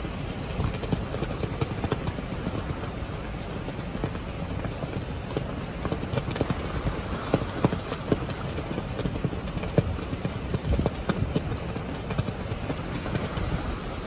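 Strong wind rushing, with a US flag slapping against its flagpole in irregular knocks that come thicker about halfway through.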